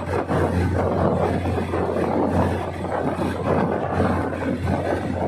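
Diesel multiple unit train running, a steady low hum under an even, continuous rush of noise.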